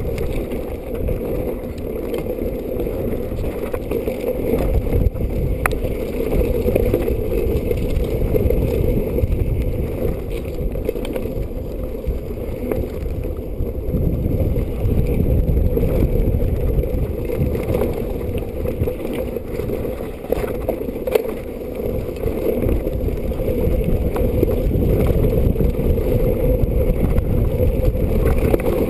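Wind buffeting the microphone over the rumble and rattle of a mountain bike running fast down a rough dirt trail, heard muffled, with scattered sharp clicks.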